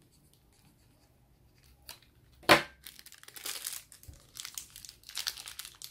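Small plastic toy packet being cut with scissors and pulled open: one sharp snap about two and a half seconds in, then on-and-off crinkling and tearing of the plastic.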